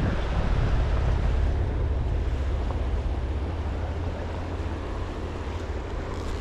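Steady rush of river water running over a shallow riffle, with wind rumbling on the microphone.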